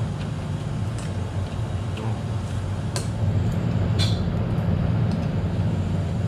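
A steady low rumble with a hum, growing louder after about three seconds, under a few short clicks and slurps of eating with chopsticks from small bowls.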